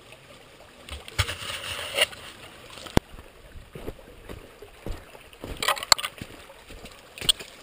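Water sloshing and splashing in a rocky creek bed, coming in irregular bursts, with a sharp knock about three seconds in.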